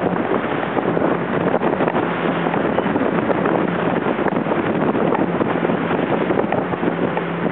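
Wind buffeting the microphone and water rushing, over the steady low hum of a watercraft engine running at speed on choppy water.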